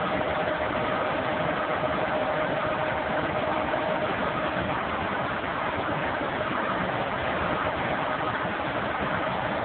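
Piling rig's engine running steadily, with a steady whine that fades out about halfway through.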